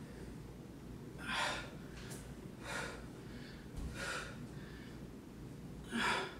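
A woman breathing hard from exertion: four short, sharp breaths spaced about one and a half seconds apart.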